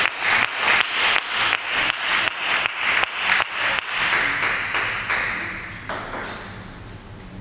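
Table tennis ball ticking over and over, about three or four sharp clicks a second over a hiss, fading away about five seconds in; one sharper knock near the end.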